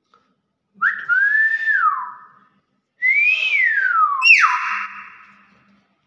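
Nias hill myna giving two loud whistled calls, each rising briefly and then sliding down in pitch. The second call ends in a sharp high note and a harsher held note.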